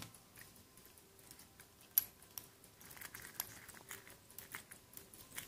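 Fingers handling a metal wristwatch on its steel link bracelet: faint scattered clicks and clinks of the links and case, with one sharper click about two seconds in.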